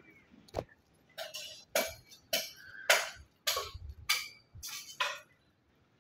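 Hammer striking stone: about nine sharp, ringing knocks in a steady rhythm, roughly two a second.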